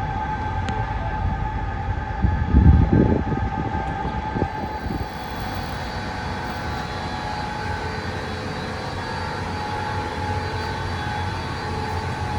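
Constant loud mechanical noise from a large office building's equipment: a steady hum with several held tones over a low rumble. A brief, louder low rumble rises and fades about two to three seconds in.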